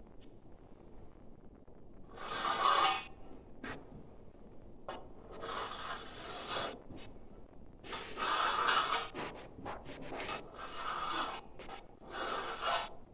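Hand tool scraping through ceramic fiber board in about five long strokes, each lasting about a second, with faint scratching between them.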